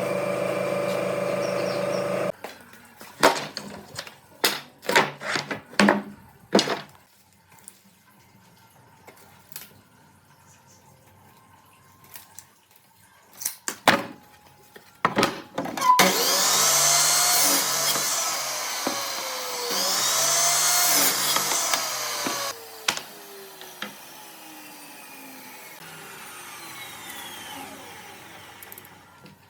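Workshop power tool and wood handling. A motor runs steadily and stops about two seconds in, then there are scattered wooden knocks and clicks. Later a power tool runs loudly twice, its pitch sweeping up and down, then winds down with a falling whine.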